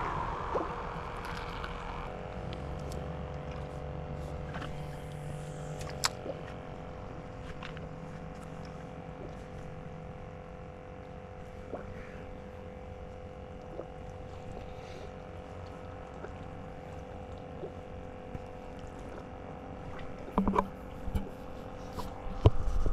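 A small motor running steadily, a hum with a whine that comes on abruptly about two seconds in, with scattered light clicks and a few knocks near the end.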